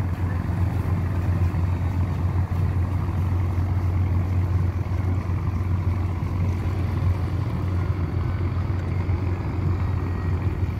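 A small boat's engine running steadily as the boat cruises slowly across calm water, a constant low drone.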